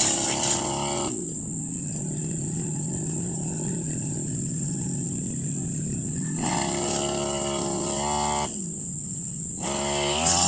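Brush cutter engine running steadily under cutting, its pitch rising and falling as the throttle is worked.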